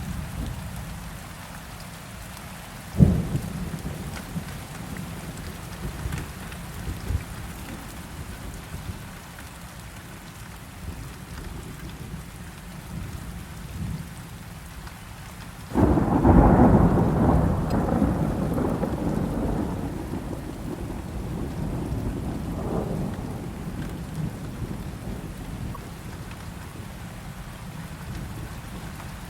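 Steady heavy rain, with a sharp clap of thunder about three seconds in and a long rumble of thunder starting about halfway through, fading away over several seconds.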